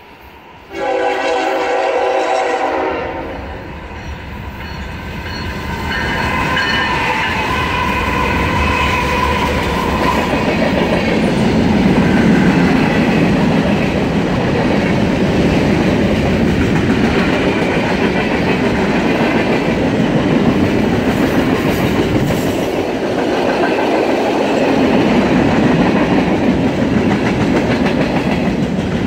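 A diesel freight locomotive sounds its horn in a loud blast about a second in, then again for several seconds starting around six seconds in. The long freight train then rolls past with a steady rumble and the clickety-clack of wheels over the rails.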